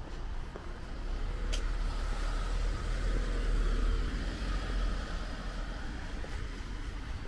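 A road vehicle passing by, growing louder to a peak about halfway through and then fading, with wind rumbling on the microphone. A single sharp click comes early in the pass.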